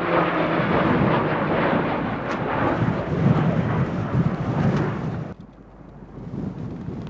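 Pilatus PC-21 turboprop aircraft passing close by: a loud, dense rumble right after their falling engine tone dies away. About five seconds in, the rumble cuts off abruptly to a much quieter steady noise.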